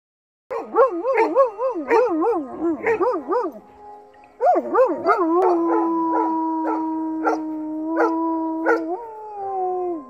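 A borzoi howling along with the 5 o'clock chime melody. Wavering, pitched howls start about half a second in, dip briefly near the middle, then give way to long, steady held notes.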